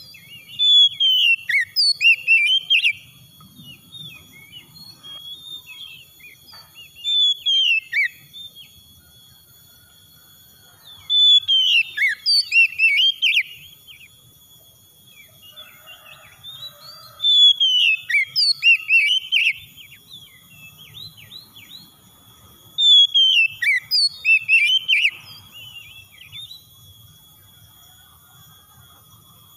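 Oriental magpie-robin singing: phrases of quick, varied, whistled notes, each two to three seconds long, coming about every six seconds with pauses between. Four of the phrases are full and loud, and one short, softer phrase comes about seven seconds in.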